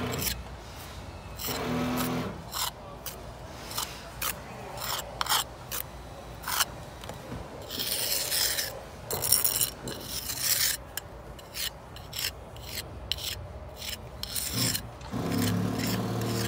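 A steel brick jointer is rubbed along fresh mortar joints in a brick wall, making a run of short, rasping scrapes as the joints are tooled. Near the end, a low, steady hum with several pitches comes in.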